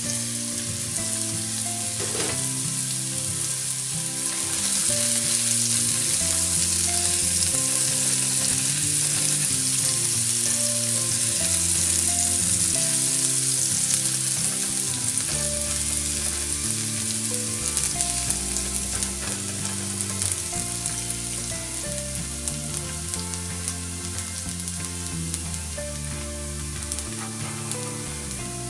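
Chopped white onion and garlic sizzling in hot oil in a nonstick frying pan, stirred with a silicone spatula. The sizzle grows louder about four seconds in and slowly eases toward the end.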